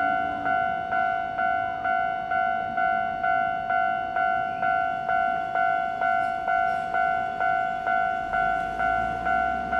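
Japanese railway level-crossing alarm ringing: a repeated electronic ding, about two strikes a second, at an even pace.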